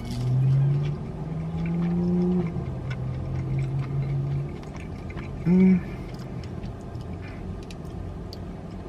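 A woman humming a long, wavering 'mmm' while tasting and chewing food, then a short hum about five and a half seconds in, with faint clicks of chewing.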